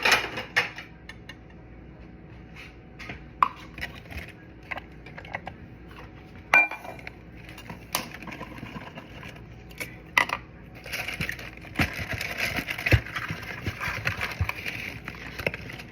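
Kitchen clatter of utensils and dishes: scattered knocks and light clinks, one ringing clink about six and a half seconds in, and a denser rustling, scraping noise from about eleven seconds in.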